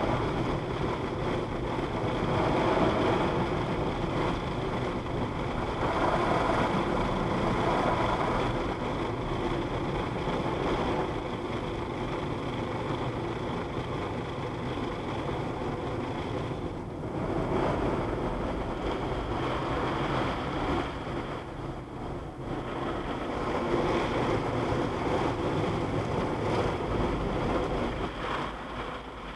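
Automatic car wash spraying water over the car, heard from inside the cabin: a steady rushing hiss of water on the windshield and body that eases off near the end.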